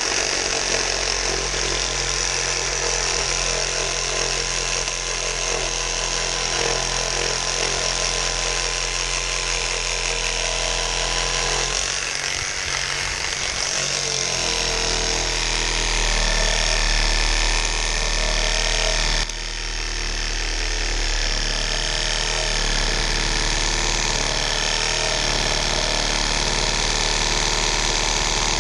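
Cordless brushless reciprocating saw cutting through a dead apple tree branch, its blade running continuously under load. Its tone shifts twice partway through before it stops.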